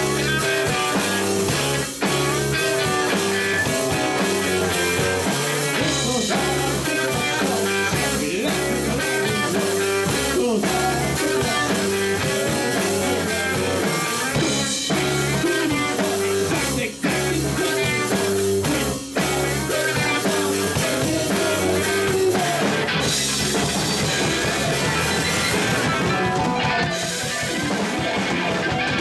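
Live rock band playing electric guitars, keyboard and drum kit over a repeating bass line, with no singing; near the end the sound turns noisier.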